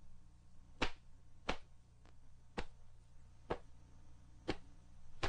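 Sharp snaps of a taekwondo uniform's sleeves and trouser legs as poomsae strikes, blocks and kicks are snapped out, six in a row roughly a second apart, over a steady low hum.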